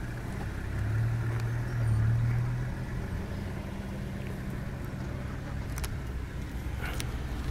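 Safari vehicle's engine idling with a steady low hum, which swells louder for a couple of seconds about a second in and then settles back.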